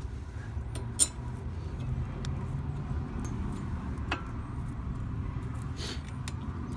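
A few light metallic clicks and clinks of brake pads and caliper hardware being handled and pushed into place, the sharpest about a second in, over a low steady rumble.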